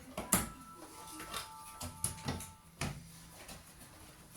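Metal computer parts being handled during disassembly: a handful of sharp knocks and clicks. The first and loudest knock sets off a metallic ring that carries on for about two seconds.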